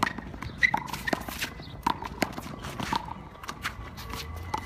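A run of irregular sharp slaps from a handball rally: the small rubber ball smacking off the concrete wall and bouncing on the pavement, with the players' footsteps on the court.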